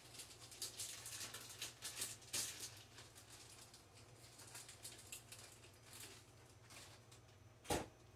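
Faint clicks and rustles of small 3D-printer parts and their packaging being handled by hand, busiest in the first few seconds, with one louder knock near the end over a low steady hum.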